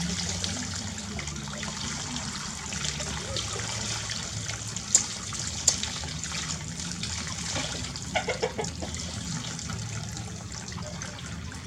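Water running steadily, as from a tap filling or splashing into a basin for a monkey's bath. Two sharp clicks come about five seconds in, and a brief pitched squeaking sound comes around eight seconds.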